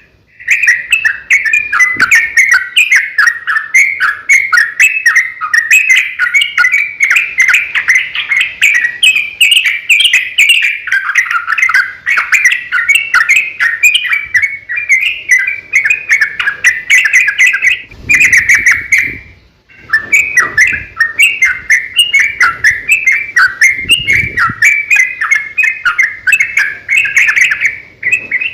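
Yellow-vented bulbul (trucukan) singing a long, rapid, chattering song of many quick notes run together, the excited 'ropel' song used as a lure to set other bulbuls singing. It breaks off briefly about two-thirds of the way through.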